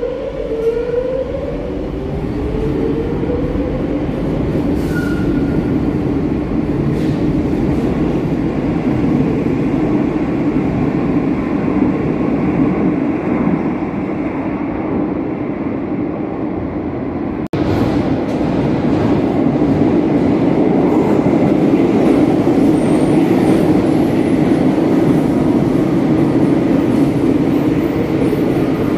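Madrid Metro Line 6 electric train pulling out of the station, its traction motors whining up in pitch as it accelerates, over a steady rolling rumble that echoes in the tunnel. After a brief break partway through, a louder steady rumble of a train running along the platform close by.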